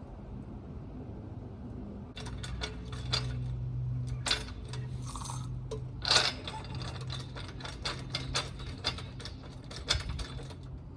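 Metal tools and parts clinking and clattering as they are handled, a quick irregular run of clicks and clacks starting about two seconds in, over a faint steady low hum.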